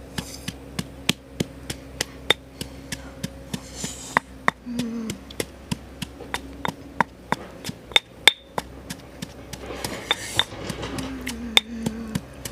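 Stone pestle pounding in a stone mortar: sharp knocks, about two to three a second, irregular in spacing and strength.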